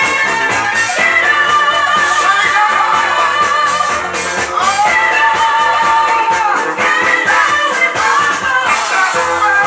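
Philadelphia soul music from a compilation LP, playing continuously with a steady beat and singing, including a long held note around the middle.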